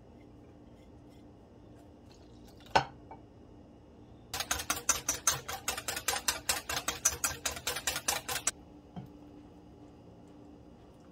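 Wire whisk beating yogurt sauce in a stainless steel bowl: a quick, even run of about seven strokes a second, lasting some four seconds. A single sharp knock comes shortly before the whisking starts.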